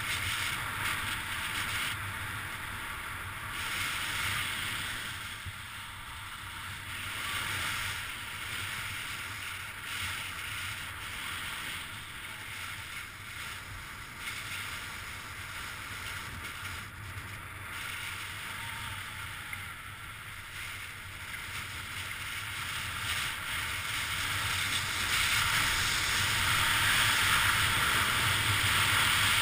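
Steady scraping rush of skis sliding over firm groomed snow, mixed with wind on the camera microphone, growing louder near the end.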